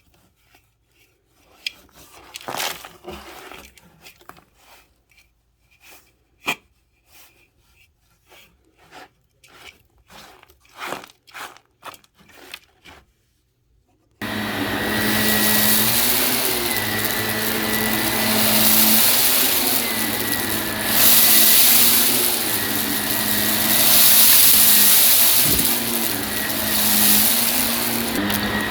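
Scattered clicks, knocks and rustles of handling, then about halfway a vacuum cleaner starts suddenly and runs steadily with a low hum and a thin high whine, its level swelling and easing.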